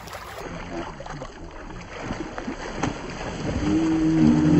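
A large lake sturgeon thrashing at the water's surface on the line, splashing with scattered slaps. About three and a half seconds in, a low, drawn-out tone comes in and grows louder.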